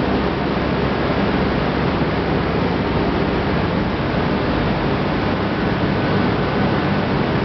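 Steady rushing of water pouring over a sloped screen of wet milled corn, mixed with the even low hum of running process machinery in a corn wet-milling plant.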